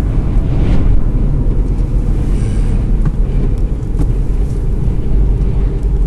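Steady low rumble of a car driving at highway speed, heard from inside the cabin.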